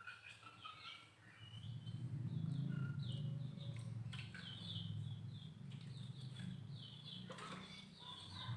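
Small birds chirping repeatedly in short, high, falling chirps, over a low hum that comes in about a second and a half in and fades near the end.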